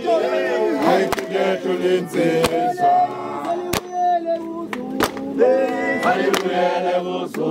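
A group of men singing a Zulu chant together in harmony, with a sharp handclap on the beat about every second and a quarter.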